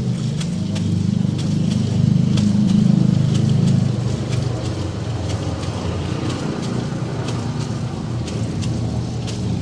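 A low, engine-like rumble, most likely a motor vehicle, that swells for a few seconds and then eases to a steady hum. Over it comes a steady run of faint high ticks, about three a second.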